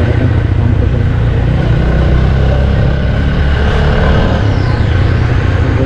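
Motorcycle with a modified exhaust running steadily while being ridden on the road.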